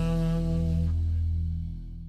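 Background jazz music ending on a held final chord that fades out near the end.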